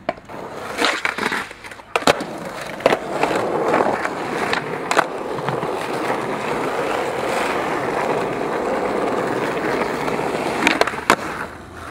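Skateboard wheels rolling over stone paving tiles in a steady hum, with a few sharp clacks of the board near the start and again near the end.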